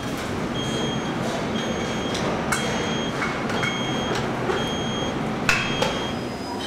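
An electronic beeper sounding a short high beep about once a second, six times, over a steady machine hum. Two sharp clicks come midway and near the end.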